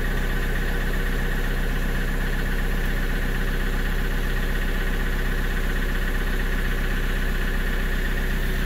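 Kioti RX7320 tractor's diesel engine idling steadily just after a cold start at about zero degrees, heard from inside the closed cab.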